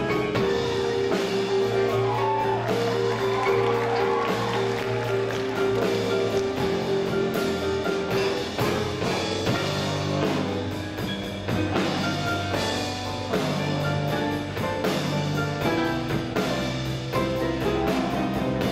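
A live blues band playing, with drum kit, guitars and piano; held notes ring over a steady drum beat.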